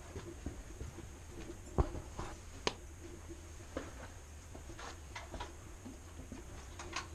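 Footsteps scuffing and crunching irregularly on a sandy cave path, with scattered light taps and two sharper knocks a little after two seconds in.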